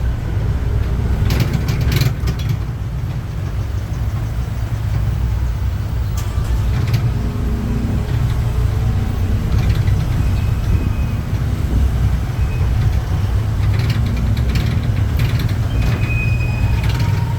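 Steady low engine and road rumble heard from aboard a moving vehicle, with a couple of sharp rattles about one to two seconds in.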